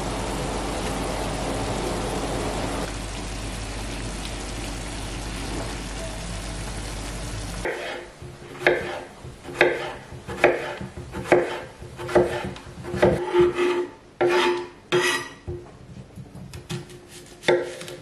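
Sliced mushrooms sizzling steadily in a nonstick frying pan while a spatula turns them. About eight seconds in, the sizzle cuts off and a kitchen knife slices a cucumber on a wooden cutting board, roughly one stroke a second, each ending in a knock on the board.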